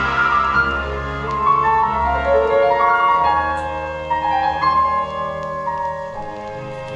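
Piano music with slow, held chords, played back through a Dynaco A-35 loudspeaker whose crossover network capacitors and other parts have just been replaced.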